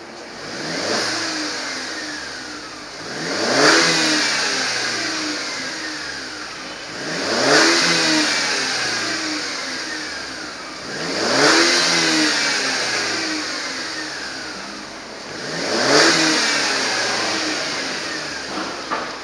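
Mercedes-Benz W204 C180's M271 four-cylinder petrol engine being free-revved five times: a small blip about a second in, then four stronger ones about four seconds apart, each rising quickly in pitch and sinking slowly back to idle.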